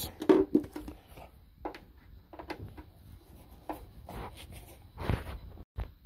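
Scattered light clicks and taps of a tool working a screw on a water heater's sheet-metal jacket while a ground wire's terminal is fitted under it.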